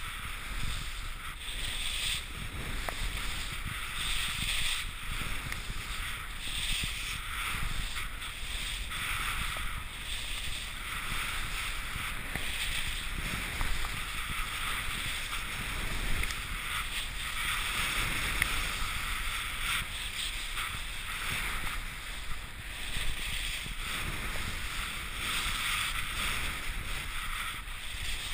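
Skis hissing and scraping over sticky, sun-softened snow during downhill turns, the rush swelling and fading every second or two, over a steady low rumble of wind and handling noise, muffled by the camera's protective housing.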